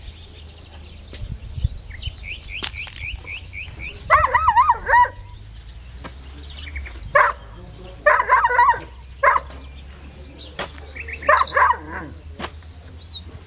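Animal calls: three short bursts of warbling, wavering cries, with small birds chirping in between.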